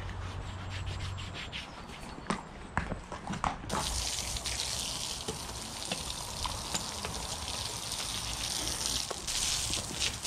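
Garden hose spraying water onto a horse's legs and wet brick paving: a steady hiss that starts suddenly about a third of the way in. Before it, a few scattered knocks.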